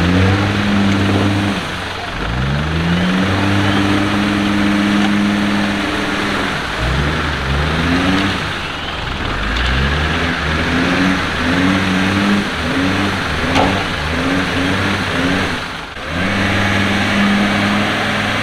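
Land Rover Defender engine revving hard again and again off-road: several long pulls rise and hold. In the middle comes a run of short, quick throttle blips.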